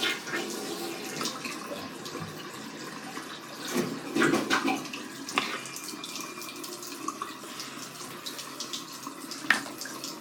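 Water running and splashing steadily, with a louder clatter about four seconds in and a sharp knock near the end.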